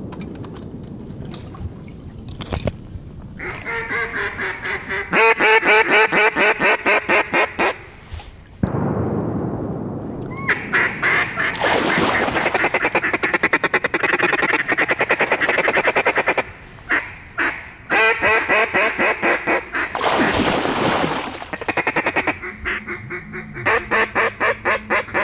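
A wooden duck call blown by a hunter in long runs of rapid quacking notes. About nine seconds in, a sudden loud bang rings out and dies away.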